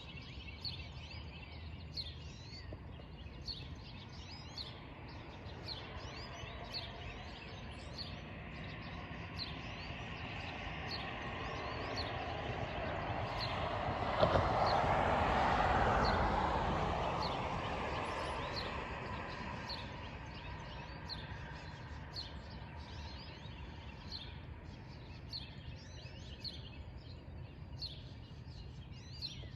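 Songbirds chirping throughout, with a passing car's noise growing steadily to a peak about halfway through and then fading away.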